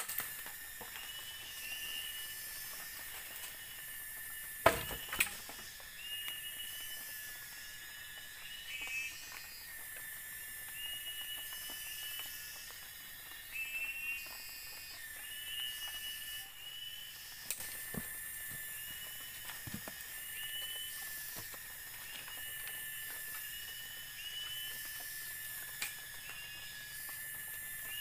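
Tropical forest ambience: a steady high insect drone with pulsing high buzzing, and a bird repeating a short rising whistled phrase every second or two. A few sharp machete chops on wood cut through it, two close together about five seconds in and another near eighteen seconds.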